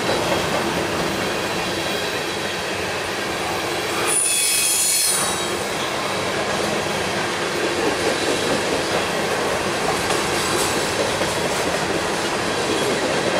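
Freight cars of a manifest train rolling past on the rails, a continuous rumble and clatter of wheels on track. About four seconds in, the wheels give a brief high-pitched squeal lasting around a second.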